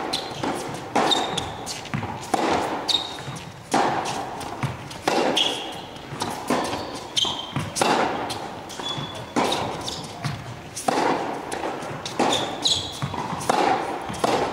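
Tennis rally in an echoing indoor hall: a steady run of sharp racket strikes and ball bounces, about one every second and a half, with short high squeaks of tennis shoes on the court between them.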